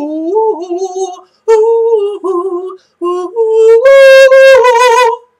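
A man singing unaccompanied in a high voice: three short phrases of held notes, the last one long and wavering before it stops.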